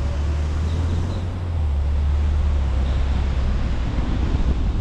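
Car driving on a wet road in the rain: a steady low rumble of engine and tyres under a wash of road and wind noise, growing a little louder about a second and a half in.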